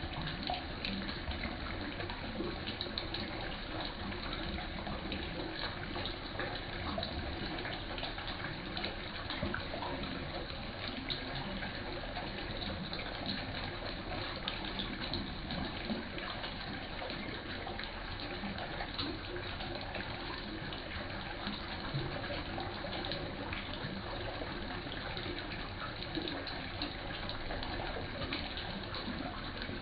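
Water running steadily into a fish pond, a constant rush and splash at the surface.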